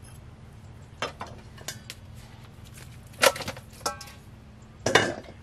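A few scattered knocks and clinks of a cleaver on a wooden chopping board and metal bowls, some ringing briefly; the loudest comes about three seconds in.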